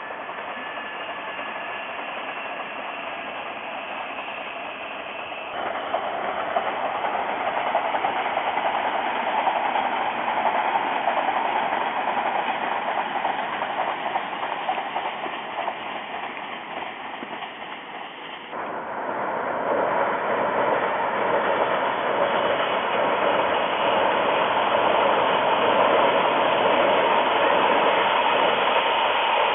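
Odakyu Line electric train running past, a steady rushing rumble that grows louder, with sudden jumps in sound about five seconds in and again past the midpoint.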